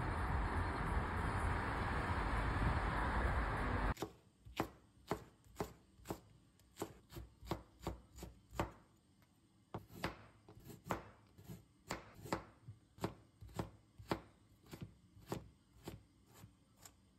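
Steady road and engine noise inside a moving car for about four seconds, cut off sharply. Then a chef's knife chopping green onion and then carrot on a plastic cutting board, about two crisp strikes a second, with a short pause near the middle.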